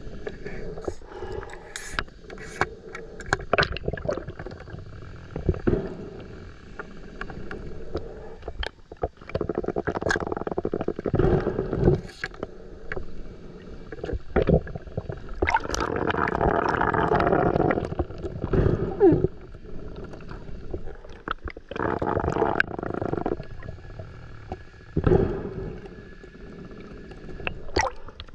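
Water swishing and gurgling around an underwater camera housing as a spearfisher swims, swelling for a second or two at a time, with scattered sharp clicks and knocks.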